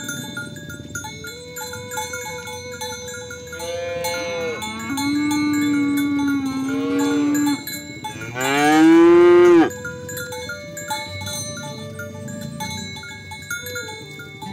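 Cattle mooing: long drawn-out calls in the first half, then the loudest moo about eight seconds in, rising and falling in pitch. Cowbells clank throughout.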